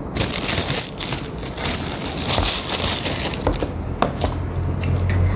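Crinkly crunching with scattered clicks from a fried chicken meal being eaten and handled close to the microphone, densest in the first few seconds.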